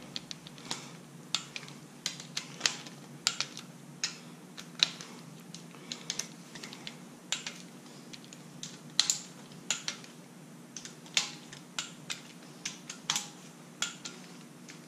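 Torque wrench ratcheting and clicking on the rocker arm bolts of a 5.3 L LS V8 as they are retorqued to 22 foot-pounds: sharp metallic clicks, irregularly spaced at about one or two a second.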